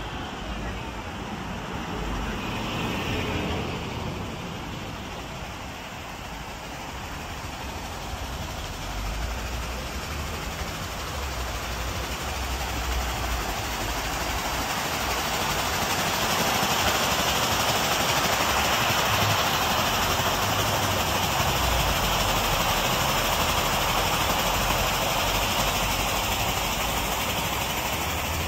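Water pouring in wide sheets over the stone lips of a wall fountain into its basin: a steady rushing splash that grows louder toward the middle and then holds. Street traffic is heard in the first few seconds.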